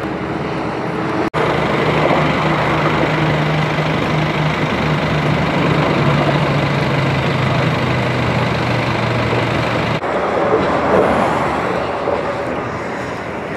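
Steady rumble of freeway traffic with a vehicle engine running close by. A low engine hum sits under the traffic from about two seconds in until about ten seconds in, and its pitch drops partway through.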